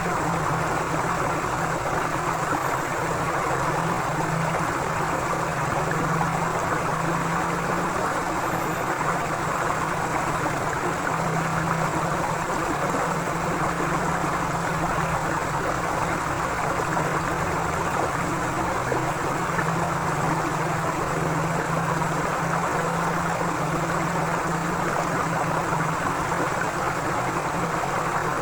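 Forest river flowing steadily, a continuous even rush of water, with a low hum underneath that swells and fades several times.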